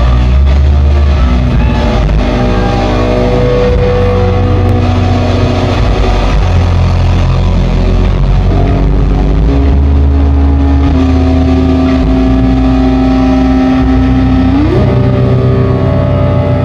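Loud live rock band: distorted electric guitars and bass holding long droning notes through the amplifiers, with one note sliding up in pitch a little before the end. No drumbeat is heard.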